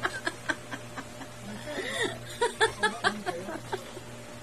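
Soft chuckling and quiet laughter with a few murmured words, over a low steady hum.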